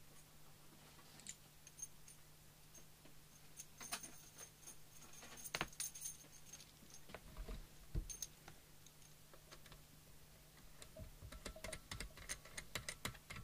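Small metal parts being handled on a workbench: faint clicks, clinks and jangling rattles in two clusters, about four to six seconds in and again near the end, over a faint steady low hum.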